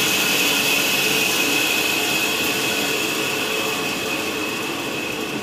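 Three-wheel band saw with 12-inch wheels and a belt drive, running with nothing being cut: a steady whir with a constant high whine, easing slightly toward the end.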